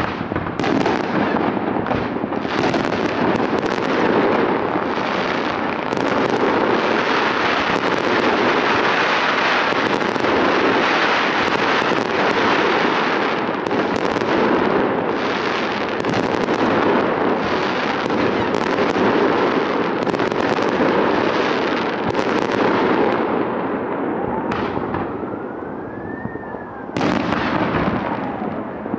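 A fireworks salute going off in rapid succession: a dense, continuous stream of bangs and crackles. About 24 seconds in it eases off briefly, with a faint whistle rising and then falling, before loud bursts start again near the end.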